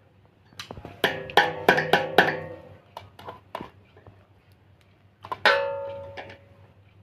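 Metal fan-mounting hardware being knocked and clinked while it is worked by hand, each knock leaving a short ringing tone. There is a quick, irregular run of knocks a second or so in, and one louder strike near the end that rings for about a second.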